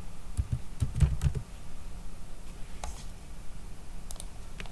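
Computer keyboard typing: a quick run of key presses about a second in, then a few separate keystrokes.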